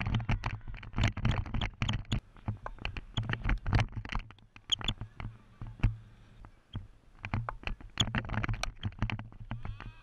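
Handling noise from a GoPro worn by a cricket batsman: a quick, irregular run of scratches and knocks as the camera rubs and shifts against his gear while he moves, over a steady low wind rumble, easing off for a few seconds midway.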